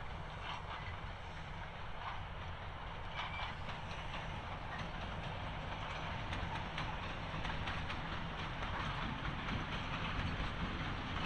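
Narrow-gauge train hauled by diesel-electric locomotives rolling by: a steady low engine rumble with the wheels clicking over the rails, slowly growing louder.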